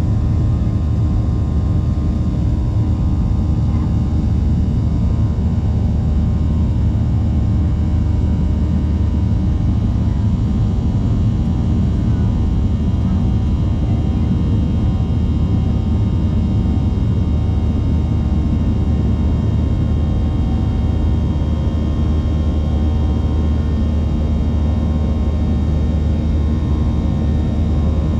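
Steady cabin drone of a jet airliner in flight: a loud, even, deep rumble of engines and airflow, with faint steady tones above it.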